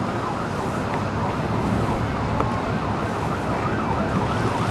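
Emergency-vehicle siren in a fast yelp, its pitch sweeping down and up several times a second, clearest in the second half, over a steady low rumble.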